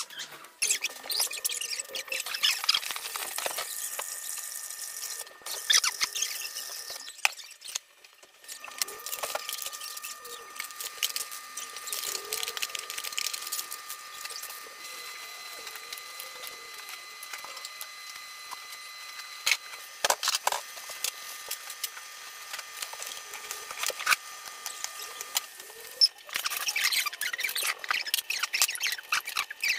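Plastic packaging crinkling and rustling as snack wrappers and cup-noodle seasoning packets are handled, with scattered sharp clicks and taps. A faint steady high whine runs under the middle part.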